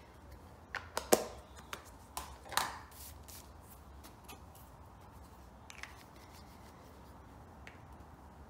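A few sharp clicks and knocks of small craft supplies, an ink pad and a plastic glue bottle and cap, being picked up and set down on a desk mat, loudest about a second in, then a few faint ticks, over a faint low hum.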